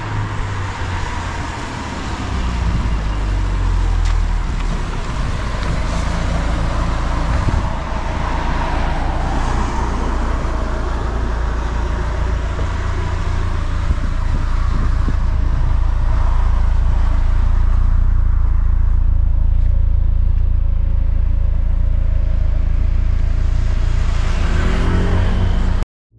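Porsche 944 S2's 3.0-litre four-cylinder engine running as the car drives on a wet road, a steady low rumble under the noise of tyres on wet tarmac, growing louder in the second half. The sound cuts off abruptly just before the end.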